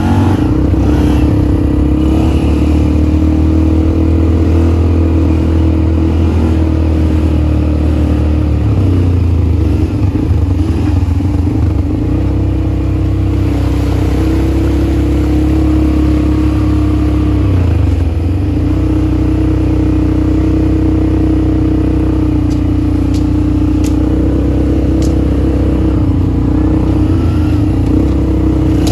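ATV engine running steadily under way, its pitch dipping briefly a few times as the throttle eases and picks up again.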